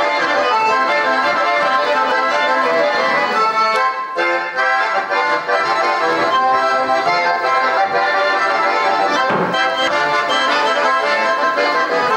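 Button accordion playing a brisk traditional Russian dance tune.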